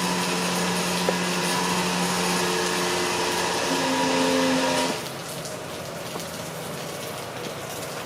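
Gas delivery truck running with a steady motor whine that shifts pitch briefly and cuts off suddenly about five seconds in. Steady rain is left after that.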